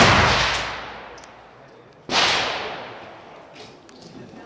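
A single loud gunshot about two seconds in, with a long echoing tail that fades over about two seconds. The tail of the previous shot is dying away at the start.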